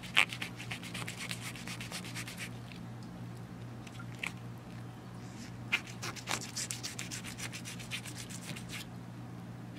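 Fillet knife cutting through a snook's scales and skin, a rapid crackling scrape in two long runs: one at the start, the other from about six seconds in.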